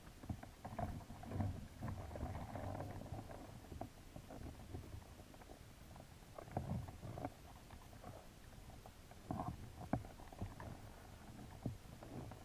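Muffled underwater sound through a GoPro housing: a low rumble with irregular clicks and knocks as signal crayfish clamber about and scrape against the plastic mesh of a trap. The knocks come in clusters, the sharpest near the end.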